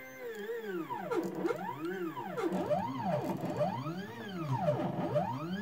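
Stepper motors of a mini CNC mill driving its axes in a series of quick jog moves: each move is a pitched tone that rises as the axis speeds up and falls as it slows, about six sweeps one after another.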